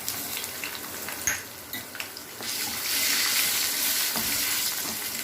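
Chopped garlic sizzling in hot sesame oil, with a few light clicks at first; the frying hiss grows clearly louder about two and a half seconds in.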